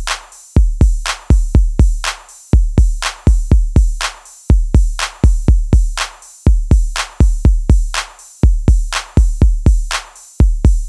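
Background music: a steady drum-machine beat of deep bass kicks and sharp hits.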